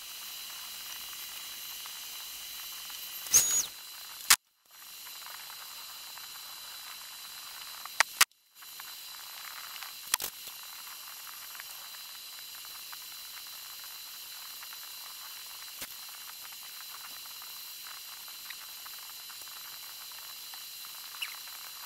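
A steady hiss with faint high whines in it, broken by a few sharp metallic clicks and clinks as hand tools meet steel parts and the milling-machine table. The sound drops out briefly twice.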